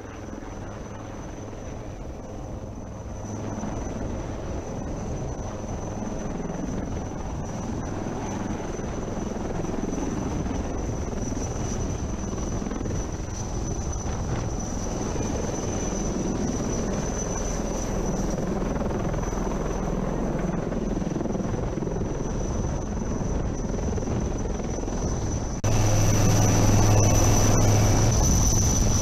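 Helicopter turbine and rotor noise: a steady rush with a thin high whine over it. About 26 seconds in it switches abruptly to a louder stretch with a strong low hum.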